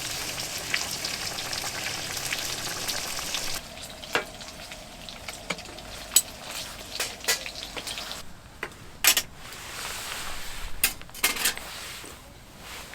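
Food sizzling loudly in a hot pan. About three and a half seconds in it drops to a quieter sizzle, broken by a series of sharp clicks and clinks like a utensil against the pan.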